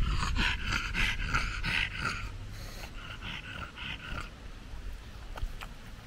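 Pug panting, quick rhythmic breaths about three a second, with a short pause about two seconds in; the panting stops a little after four seconds.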